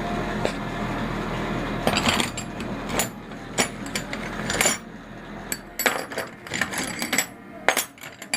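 Metal sockets and hand tools clinking and clicking as someone rummages through a socket set, in irregular clusters that pick up about halfway through.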